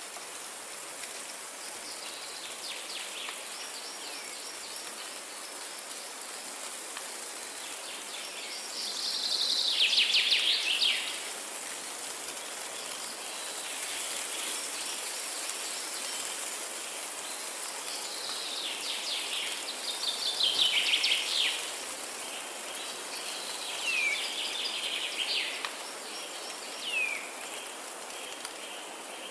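Steady hiss of light rain with songbirds singing in repeated phrases over it; the loudest song comes about a third and about two-thirds of the way through, and a few short downward-sweeping calls come near the end.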